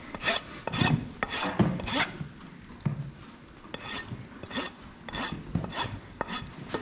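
Steel farrier's rasp filing a horse's hoof in repeated rough strokes, about two a second, with a short pause about halfway. It is lowering a heel that still looks high.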